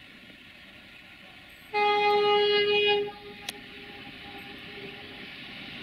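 Air horn of a 060-DA (LDE2100) diesel-electric freight locomotive sounding one steady blast of just over a second, about two seconds in. Under it runs the steadily growing sound of the approaching locomotive's Sulzer diesel engine, with one sharp click about half a second after the horn.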